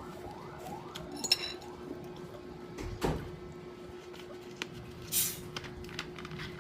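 Tableware clinking and knocking during a meal: a sharp clink about a second in, a knock, and a short rustle, over a steady low hum.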